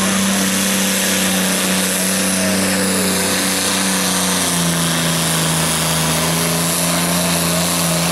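Pulling tractor's engine running hard under full load as it drags a weight-transfer sledge, with its pitch dropping a little about halfway through as the load grows.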